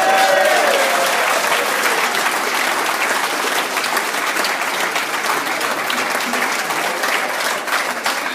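Large audience applauding, steady dense clapping, with a few voices calling out over it at the start.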